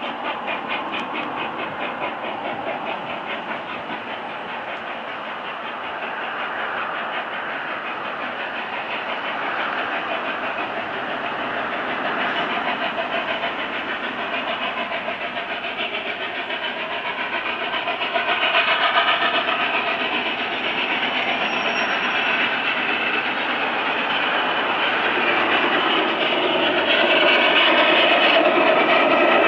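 Peppercorn A1 Pacific steam locomotive 60163 Tornado working hard on the move, its rapid three-cylinder exhaust beat growing steadily louder as it approaches.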